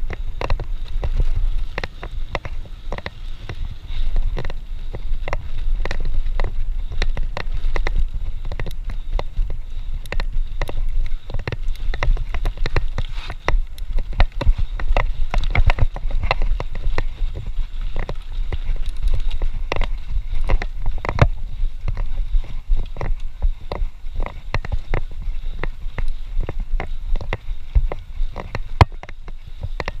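Mountain bike rolling over a rough dirt and rock trail: a dense run of sharp clicks and rattles from the bike jolting over the ground, over a steady low rumble of wind buffeting the camera microphone. The rattling is thickest through the middle stretch.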